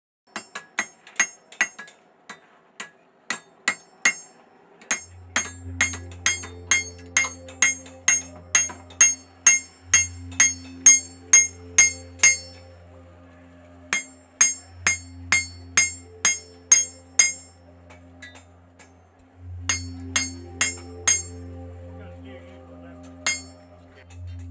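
Hand hammer striking a red-hot knife blade on an anvil: a fast run of ringing metal-on-metal blows, about three a second, with two short pauses. A low steady hum sits underneath from about five seconds in.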